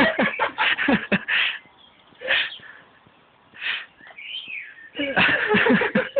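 Kittens play-fighting: a run of short, noisy scuffling bursts, and one high, arching mew about four seconds in.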